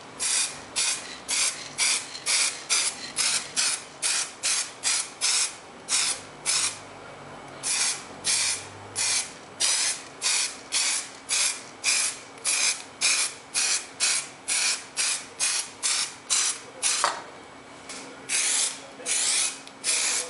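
Aerosol spray-paint can spraying in short bursts, about two a second, with two brief pauses.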